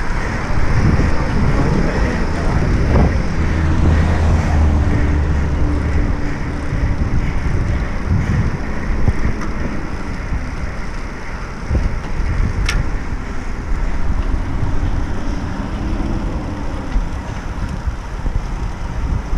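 Wind buffeting the microphone of a camera riding on a moving road bicycle, a steady low rumble mixed with road noise on a wet road. A single sharp click about two-thirds of the way through.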